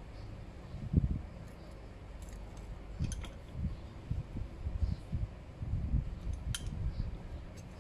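Light clicks and small knocks of a steel rule and hands working against the steel bar and tool post of a small metal lathe, over a low uneven rumble.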